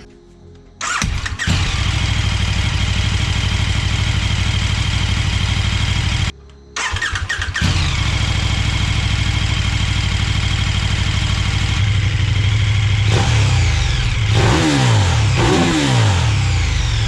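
KTM 1290 Super Duke R's V-twin engine starting about a second in and idling. The sound drops out briefly around six seconds, then the idle resumes. In the last few seconds the throttle is blipped several times, the pitch rising and falling with each rev.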